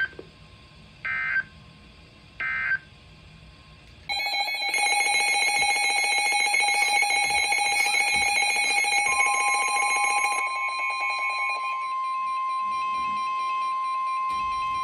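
Three short bursts of Emergency Alert System data tones, the end-of-message code, then about four seconds in a loud electronic alarm of several pulsing tones. About halfway through, a steady single alert tone near 1 kHz, the weather-radio warning tone, comes in and holds after the alarm fades.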